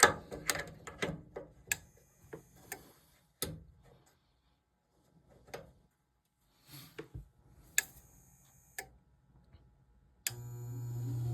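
Scattered clicks and knocks with quiet gaps, then about ten seconds in a furnace fan motor starts abruptly with a steady hum and a rising rush of air, as the furnace is tested on a newly replaced control board.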